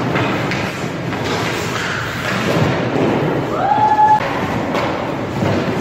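Goalie's skates and pads scraping and thudding on the ice. A short high tone rises and then holds, about two-thirds of the way through.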